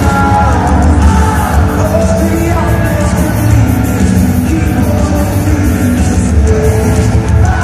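Live pop-rock band playing loudly with a lead voice singing, the bass heavy, as heard from the audience of an arena.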